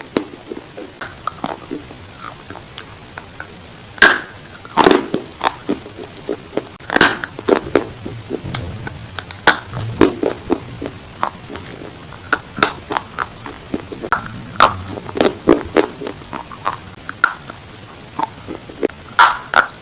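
Dry baked clay being bitten and chewed: a long run of crisp, irregular crunches, some sharp and loud.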